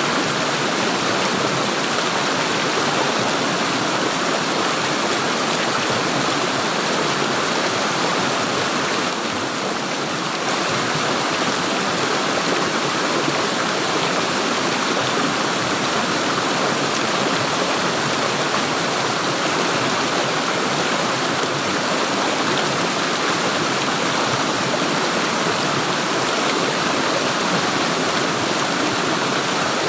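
Water gurgling and running steadily, as in a flowing stream, with no break.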